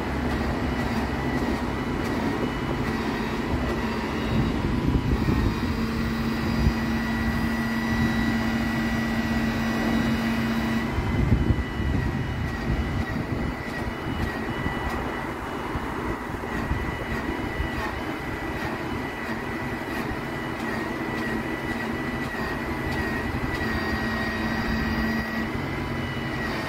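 Boom crane running steadily while lowering a steel beam: a continuous engine drone with a thin, high whine from the hydraulics. A short louder clatter comes about eleven seconds in.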